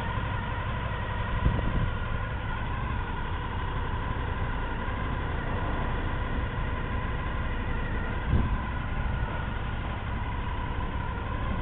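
Supercharged Honda VFR800's V4 engine idling steadily, with two short louder swells, about a second and a half in and about eight seconds in.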